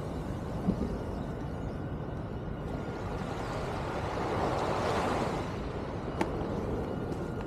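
Steady rushing of waves washing onto the shore and wind on the microphone, swelling about four to five seconds in, with one sharp click about six seconds in.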